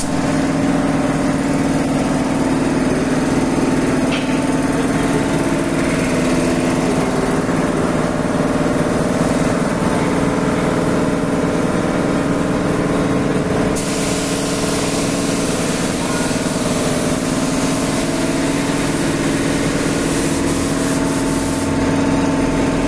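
A motor running steadily with a constant hum. A steady hiss joins it about fourteen seconds in and stops about eight seconds later.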